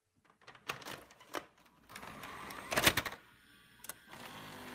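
A handful of separate knocks and clatter, the loudest about three seconds in, over a faint steady hiss.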